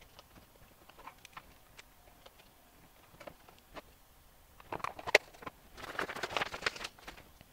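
Plastic clicks and clatter as the two halves of a small plastic meter case are handled and pressed together: a few light ticks, a sharp click about five seconds in, then a second of rapid clattering near the end.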